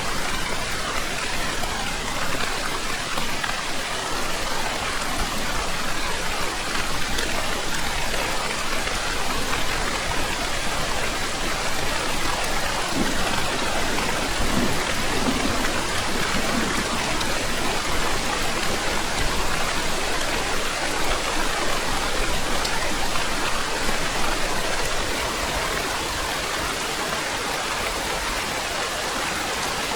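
Steady rain falling, an even hiss that eases slightly in the last few seconds.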